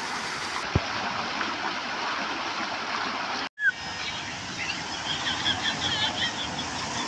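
Steady rushing outdoor noise that cuts out briefly partway through, with a soft thud under a second in and faint high warbling chirps after the break.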